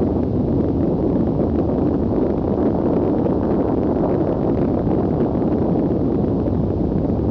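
A steady, loud low rumble with no clear pitch or rhythm, unchanging throughout.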